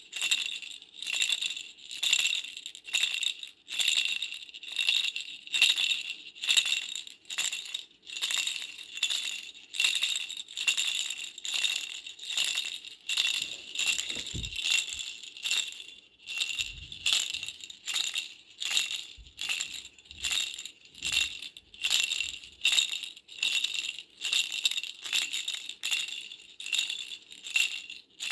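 Baby's toy rattle shaken in a steady rhythm, about one shake a second, each shake a bright jingling rattle. A few faint low thumps come about halfway through.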